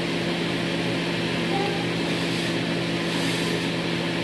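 Steady machine hum with an even rushing noise behind it.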